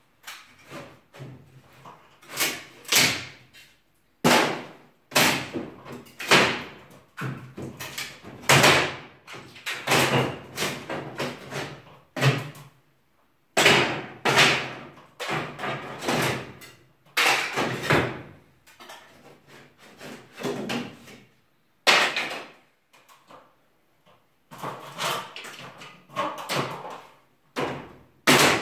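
Wooden ceiling being demolished: a run of irregular bangs, cracks and knocks as boards and battens are struck and pried loose, about one or two a second with short pauses, each ringing on in the stripped room.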